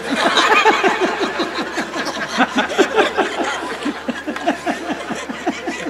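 Audience laughing, many voices together, dying down gradually toward the end.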